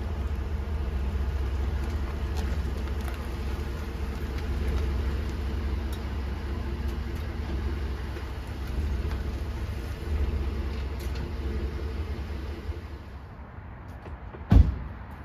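Pickup truck engine running steadily as the truck backs slowly up a driveway, until the engine stops about thirteen seconds in. Near the end comes a single loud thump, a door shutting.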